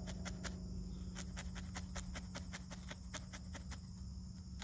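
Felting needle stabbing repeatedly through wool into a foam pad: a quick, slightly irregular run of sharp little ticks, about four or five a second. Insects chirr steadily behind.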